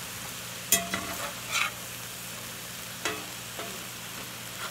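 Ground-beef patties, sliced mushrooms and onions sizzling steadily in a hot cast iron skillet, the fat rendered out into the pan. A spatula knocks and scrapes against the pan a few times as the food is pushed around, the sharpest knock about a second in.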